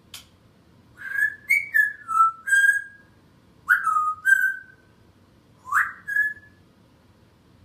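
African grey parrot whistling in three bursts of short notes that slide up and down in pitch, the first burst the longest with about six notes, the last two notes rising. A brief sharp click comes right at the start.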